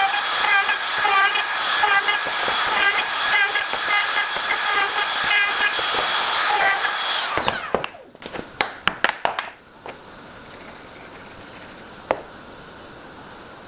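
A power tool's motor runs with a steady whine that pulses as it cuts. About seven seconds in it is switched off and winds down, falling in pitch. A handful of sharp knocks of wood being handled follow, then a faint hiss with one more knock near the end.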